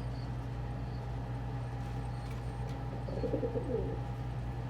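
Domestic pigeon cooing once, a short wavering coo about three seconds in, over a steady low hum, with a few faint high peeps.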